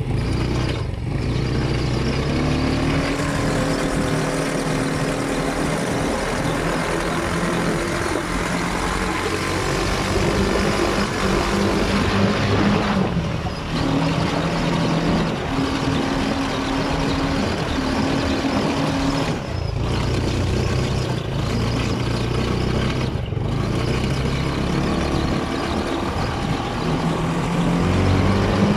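Sand buggy engine running while driving over sand, its pitch rising and falling with the throttle, under a steady rushing noise.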